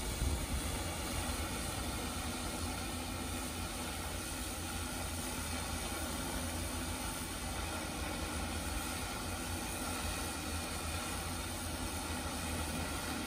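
Large hexacopter drone with a DJI E2000 propulsion system (six motors and propellers) hovering overhead: a steady whirring hum with a strong low rumble beneath it.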